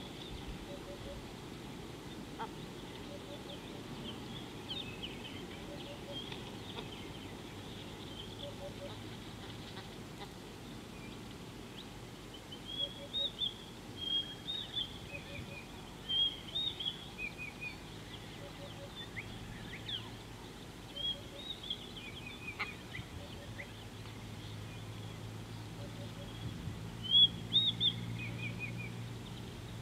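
Wild birds calling: short, high chirps in quick groups of two or three, starting about twelve seconds in and loudest near the end. A faint low hum builds in the last few seconds.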